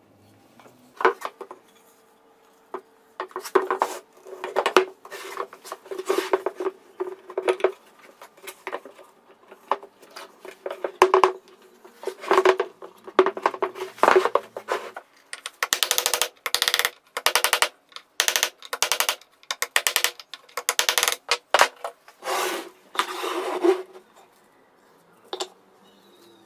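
Steel shock-absorber tubes, clamp brackets and hardware being handled and fitted on a wooden workbench: repeated clinks and knocks of metal on metal and on wood, some with a short ring. In the second half come several bursts of rapid clicking.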